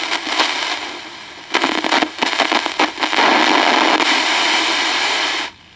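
Sokol 308 transistor radio's speaker hissing with FM interstation static while being tuned, with crackling clicks about a second and a half in, then a steady loud hiss that cuts out suddenly near the end.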